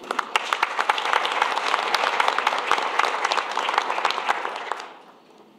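Audience applause: many people clapping at once, starting abruptly and dying away about five seconds in.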